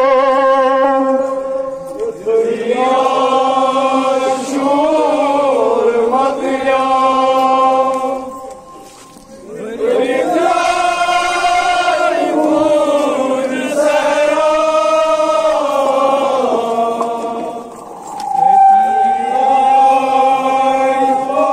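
Chanted singing: a slow melody of long, wavering held notes in several phrases, with short breaks between them.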